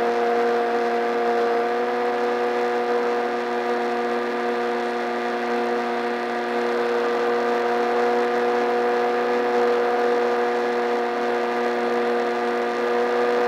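RC plane's electric motor and propeller whining at a steady throttle in flight, heard up close from the onboard camera, with a steady even pitch throughout.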